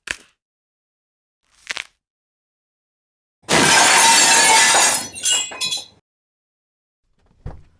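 Dubbed-in glass-breaking sound effect: two brief clinks, then glass shattering loudly about three and a half seconds in, with pieces tinkling down for about a second after. A low thump near the end.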